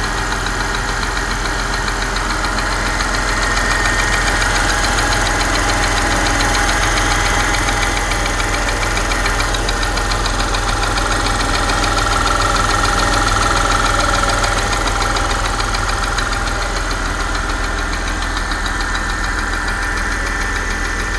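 Porsche Panamera 4S engine idling steadily with a fast, even ticking over the engine sound, the tick the owner is asking about as a possible fault.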